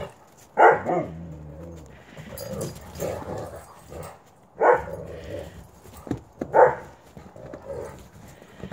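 Wolf dogs play-fighting, with about four short, sharp barks and quieter vocal noise between them.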